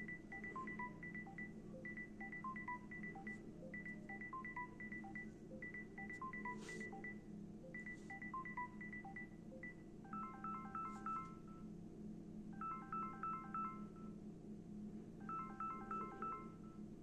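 Samsung Galaxy S20+ ringtones playing. First comes a run of quick, high electronic beeps that repeats about every two seconds. About ten seconds in it changes to a different ringtone: clusters of chiming two-tone beeps repeating about every two and a half seconds, over a steady low hum.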